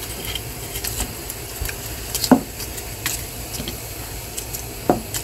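Wooden spatula stirring chunks of pork in water in a nonstick pan: soft scrapes and light clicks over a steady low hiss, with two sharper knocks against the pan, about two and five seconds in.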